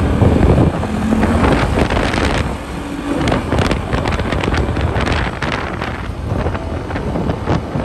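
Quad bike (ATV) engine running as it drives along, with wind buffeting the microphone.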